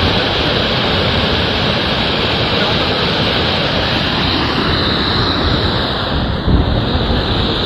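Muddy floodwater rushing down a riverbed in a flash flood after a heavy thunderstorm: a loud, steady wash of water. Near the end, wind starts buffeting the microphone.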